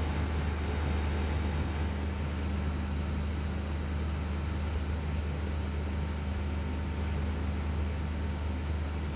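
Chicken and tomato masala frying in the pan with garam masala, an even steady hiss over a low steady hum.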